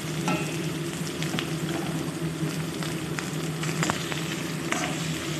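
Chicken pieces sizzling as they fry in hot mustard oil with ginger and garlic in a kadai, with scattered small crackles over a steady low hum.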